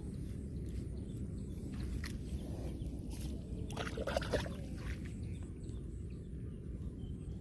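Shallow water in a rice paddy splashing and sloshing, with a cluster of sharper splashes near the middle, over a steady low rumble.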